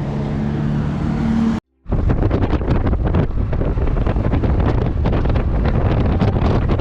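A vehicle's engine hum with two steady tones, then, after a brief dropout, loud wind buffeting the microphone on a moving vehicle.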